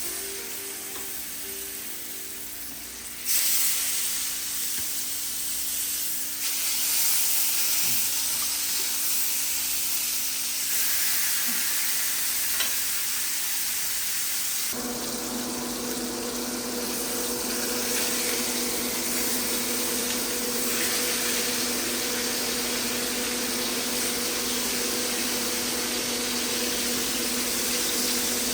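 Thick pork chops searing in hot oil in a pan over medium heat: a steady sizzle that grows louder about three seconds in. A steady low hum joins about halfway through.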